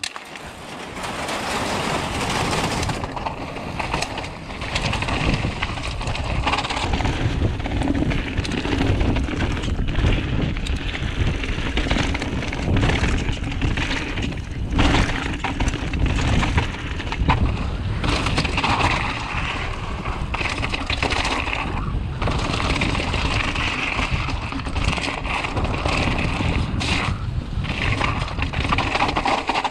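Mountain bike descending a rough trail: tyres crunching over loose gravel and roots, with constant clattering and knocking from the bike.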